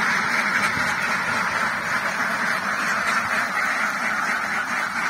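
A flock of several hundred domestic laying ducks quacking continuously, their calls overlapping into a steady, unbroken din.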